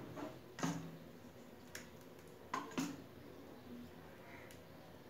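A handful of soft knocks and taps over quiet room tone: a ladle working through thick malpua batter in a bowl.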